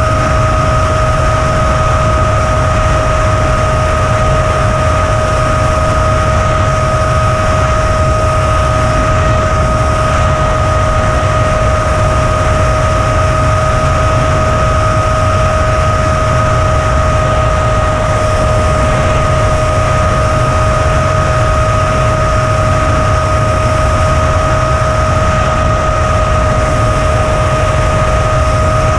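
Wind buffeting the onboard camera's microphone of a flying FPV aircraft, with a steady high whine that holds one pitch throughout.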